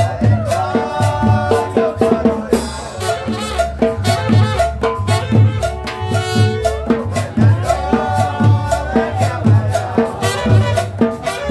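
Live salsa-style tropical music from a small street combo: a saxophone plays held melody phrases over a steady conga drum rhythm and upright bass, with cymbal and scraped percussion.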